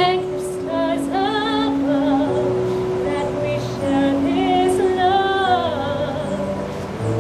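Female vocal quartet singing in harmony, a lead voice with vibrato carrying the melody over sustained lower notes.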